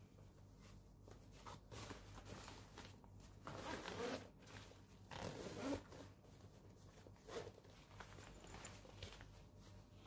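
Zipper of a Victorinox Altmont Active Compact backpack being pulled open around the main compartment, in two long rasping strokes about four and five and a half seconds in, then a shorter one a couple of seconds later.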